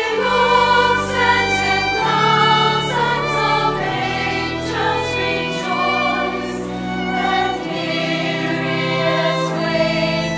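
Women's choir singing in parts, accompanied by a solo violin and pipe organ holding sustained low chords that change every couple of seconds.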